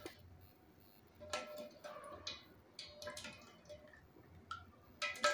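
A small spoon clinking against the ghee container and the pot as ghee is spooned in: light, irregular clicks with a brief ring, roughly one a second.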